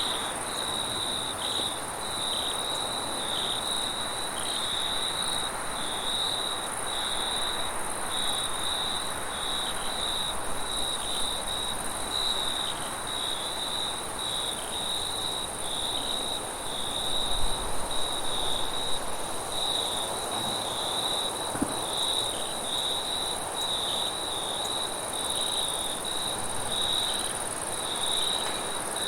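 Crickets chirping in an even, steady rhythm, with a continuous high-pitched insect trill running over them. A brief low bump sounds a little past halfway.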